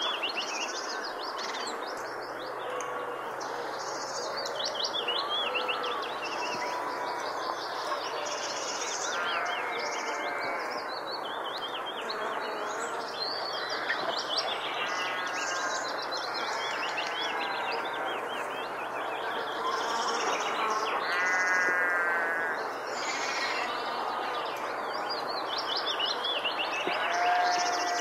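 Many birds chirping and calling at once, with overlapping short whistles and trills, over a steady background hiss.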